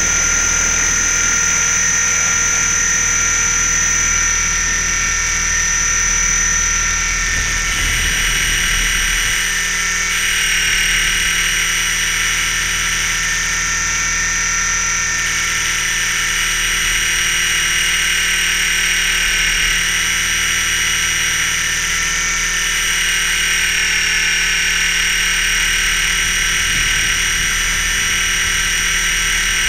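Mini Titan electric RC helicopter heard from its onboard camera: a steady, high-pitched whine of the electric motor and gears over the rotor hum, its tones shifting slightly a few times as the throttle changes.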